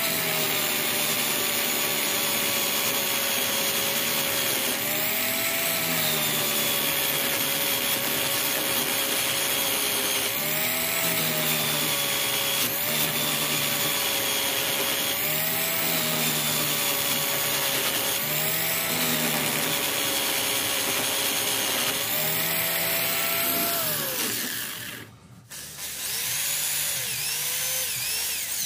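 Electric power tool motor running at speed, its whine dipping and recovering every few seconds as it is loaded against the wood. Near the end it is switched off and spins down, then gets a few short trigger bursts.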